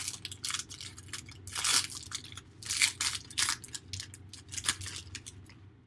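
A trading-card retail box and its foil pack wrappers being torn open and crinkled by hand: a run of irregular ripping and crackling, loudest about two and three seconds in, thinning out near the end.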